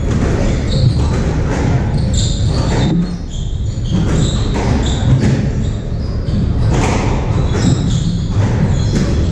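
Squash rally: the ball cracks off the racquets and the front wall again and again, ringing in the hall-like court, with short high squeaks and footsteps of shoes on the wooden floor.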